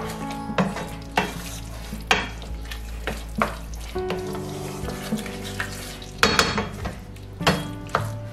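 A wooden spatula stirs thick beef and black pepper sauce in a stainless steel frying pan, scraping the pan in irregular strokes about once a second, loudest about six seconds in. Under the strokes the cornstarch-thickened sauce sizzles gently over a low flame.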